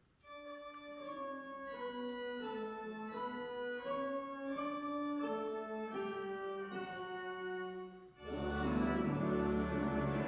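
Church organ playing a slow, sustained melody line. About eight seconds in, full organ with deep pedal bass comes in, much louder.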